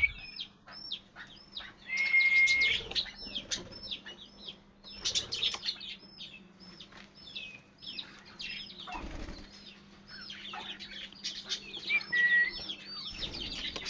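Pet parrot calling in rapid, repeated short chirps, each sliding sharply down in pitch, with a held whistled note about two seconds in and another near twelve seconds. A faint steady hum runs underneath.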